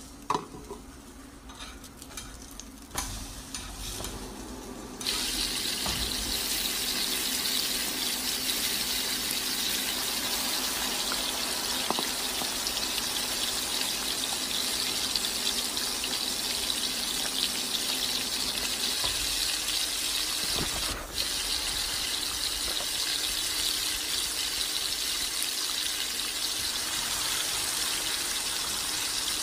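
Chicken wings deep-frying in hot oil: a steady sizzling hiss that starts suddenly about five seconds in, after a few faint clicks.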